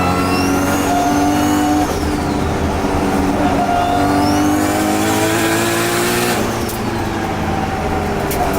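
Nissan R32 GT-R's tuned RB26 twin-cam straight-six pulling hard through two gears, engine pitch rising then dropping at each shift, with a high turbo whistle rising and falling over each pull. A few sharp pops near the end.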